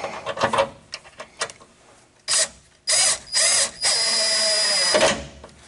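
A cordless power driver runs down the bolt of a steel line support bracket on a truck frame. After a few light clicks, it gives three short bursts about two seconds in, then a steady run of about a second with a high whine before it stops.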